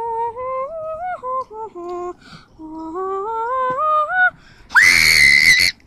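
A child humming a slow, wordless tune in two phrases, each climbing note by note. Near the end comes a sudden, loud, high-pitched squeal lasting about a second.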